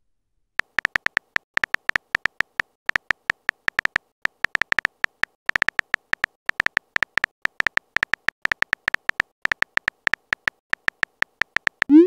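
Phone keyboard typing sound effect: an uneven string of short, high-pitched clicks, about five or six a second, one for each letter typed into a text message. Near the end comes a short rising whoosh as the message is sent.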